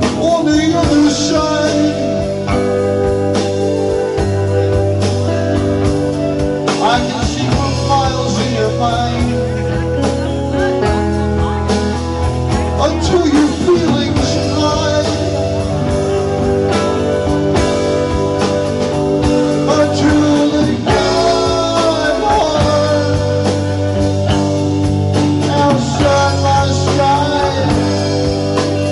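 Live rock band playing: electric guitar, electric bass, Nord Electro keyboard and drum kit, with a voice singing over them.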